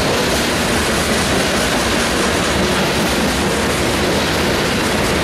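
Freight train of covered hopper cars rolling past: the steady noise of steel wheels running on the rails.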